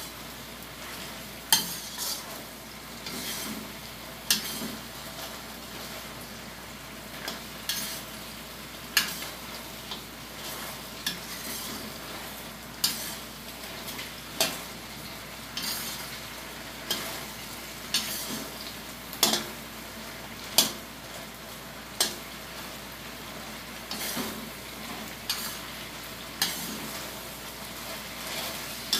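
Metal spatula scraping and clinking against a metal wok every second or two as chicken adobo is stirred, over a steady sizzle of the sauce frying.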